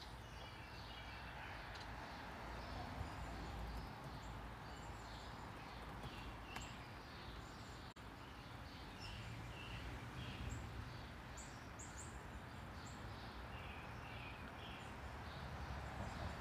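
Small birds chirping faintly in short, scattered calls over a low steady background rumble.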